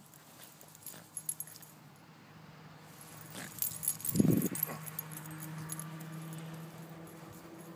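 Small metal pieces jingling and clicking, with a loud thump about four seconds in as the handheld phone is swung around. A steady low hum follows.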